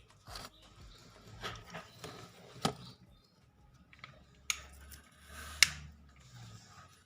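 Handling noises of small objects on a work surface: brief rustles and a few sharp clicks. The loudest clicks come about two and a half, four and a half and five and a half seconds in.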